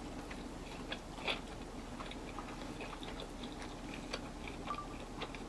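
A person chewing food quietly, with a few faint short clicks scattered through.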